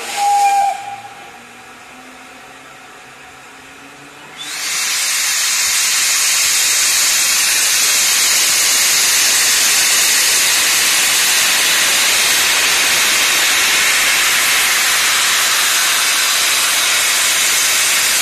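A short whistle toot in the first second, then, about four seconds in, steam from ex-LMS Hughes Crab 2-6-0 No. 13065 starts hissing loudly all at once and keeps up a steady hiss while the locomotive stands at the platform.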